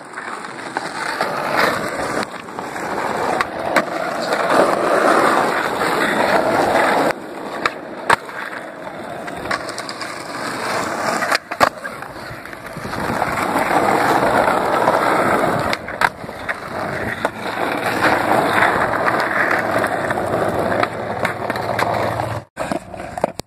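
Skateboard wheels rolling over rough asphalt, the grinding noise swelling and fading as the board speeds up and slows, with a few sharp clacks of the board striking the ground.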